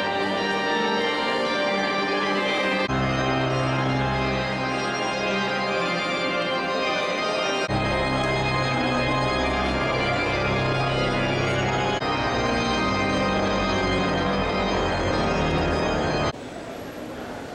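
Church organ playing full, sustained chords, the bass notes changing every few seconds. It cuts off suddenly near the end, leaving fainter background noise.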